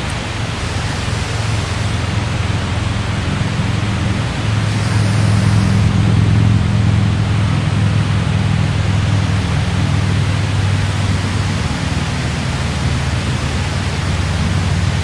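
Steady rush of water pouring below the dam, with a low hum underneath that swells in the middle and then eases.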